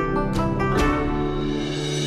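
Background instrumental music of plucked-string notes, each note starting sharply and fading, several in quick succession.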